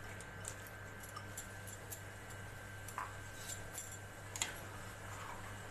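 A few faint, scattered metallic clinks from a steel spoon against a steel pot of water with corn kernels, over a steady low hum.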